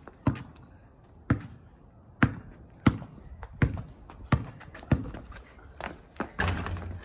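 A basketball bouncing on asphalt, about nine sharp bounces at roughly one a second as it is dribbled, with a short rustling stretch near the end.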